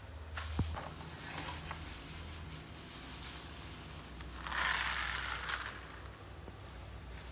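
Plastic toy tractor with trailer handled and pushed on a tiled floor: a sharp click about half a second in, then a short burst of plastic wheels rolling and scraping on the tiles a little after halfway, over a low steady hum.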